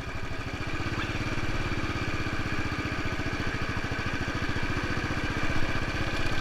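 Motorcycle engine running steadily, its firing pulses in an even rapid beat, with a steady hum that comes in about a second in.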